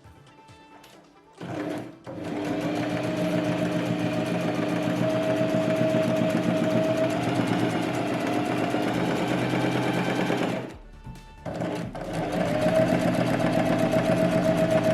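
Singer Heavy Duty 4432 sewing machine sewing a straight stitch at speed. It gives a short spurt about a second and a half in, then runs steadily with its motor whine for several seconds. It stops briefly about ten and a half seconds in, then starts again, climbing back to speed, and stops near the end.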